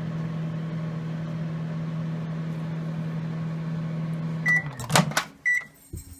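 Microwave oven running with a steady hum; about four and a half seconds in it gives a short beep and the hum stops, followed by a clunk of the door opening and another short beep.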